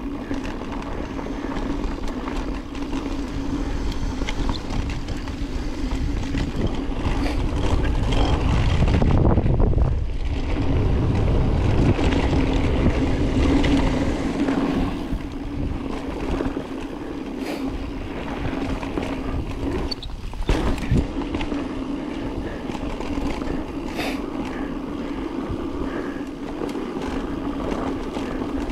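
Mountain bike descending a dirt bike-park trail: steady tyre and drivetrain noise with rumble over the ground, heavier for several seconds near the middle, and a sharp knock about twenty seconds in.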